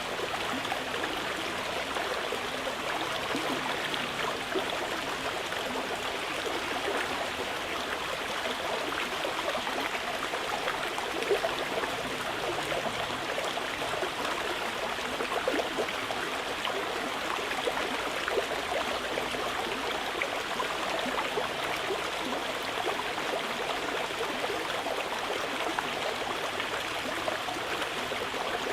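Mountain river flowing, a steady rushing and babbling of water over stones.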